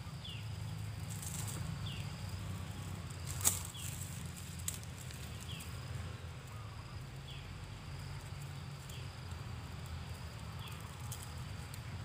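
A bird repeats a short, down-slurred high note about every second and a half to two seconds, over a thin steady high tone and a low rumble. A sharp click comes about three and a half seconds in.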